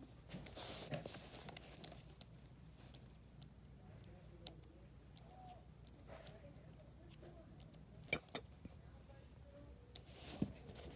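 Faint handling noise from a handheld camera: scattered sharp clicks and light rubbing over a low steady hum, with a louder pair of clicks about eight seconds in and another near the end.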